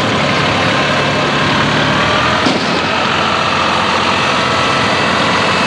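Farm tractor engine running as it drives past, a steady low hum under loud even hiss.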